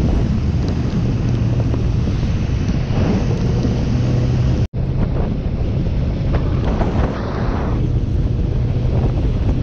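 Wind buffeting the microphone while a motorcycle runs steadily on a wet road, its engine a low hum under the wind noise. The sound cuts out for an instant about halfway.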